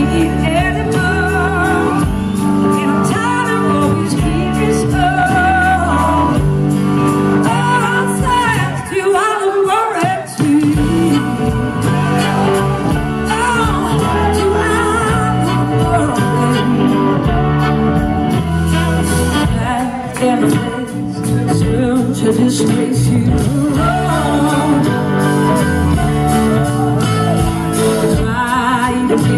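Live blues-rock band playing loudly in concert: a woman singing lead over electric guitar, drums and a horn section.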